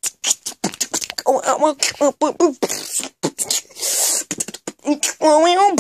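Beatboxing: a fast run of percussive mouth clicks and hissing, with short wordless sung phrases about a second and a half in and again near the end.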